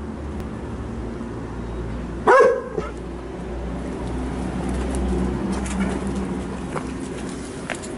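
A dog gives a single loud bark about two seconds in, over a steady low rumble.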